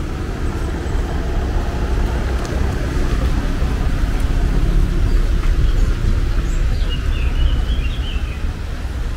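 An Audi SUV driving slowly past over wet brick paving, its sound swelling as it passes and then fading. A bird chirps briefly near the end.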